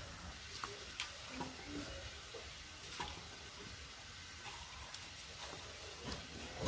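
Potatoes frying in hot oil in a kadai: a faint, steady sizzle with scattered sharp clicks and crackles.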